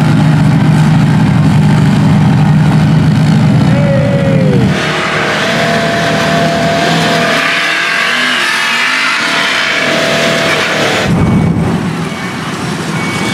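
Off-road vehicle engines at a mud bog: a steady low drone of an ATV engine working through mud, then, about five seconds in, an abrupt change to a brighter rushing engine and tyre noise with a steady whine, and another change to a different mix near the end.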